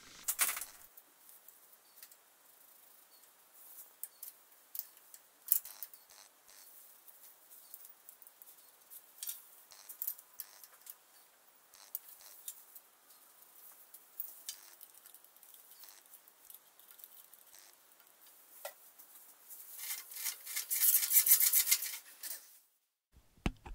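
Scattered light metallic clicks and taps of a ring spanner working the rocker-arm adjuster of a single-cylinder Petter diesel, setting the valve clearance on an exhaust valve that is too tight. Near the end comes a louder stretch of scraping, rattling noise lasting a couple of seconds.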